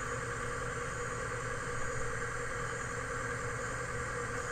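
Case IH tractor engine running steadily.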